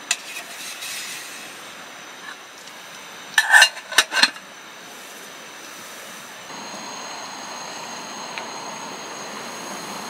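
An aluminium camping-pot lid clatters onto the pot in three quick metallic clinks about halfway through. From about six and a half seconds a steady hiss sets in as the covered pot heats on the gas stove.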